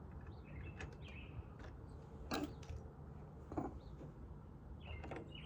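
A few faint clicks and knocks from a sliding-door lock being handled and fitted, with faint bird chirps in the background.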